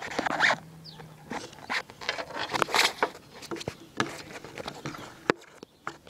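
Handling noise of the plastic hatch cover being fitted onto a Traxxas Blast RC boat hull: irregular rubbing and scraping with a string of sharp clicks and knocks.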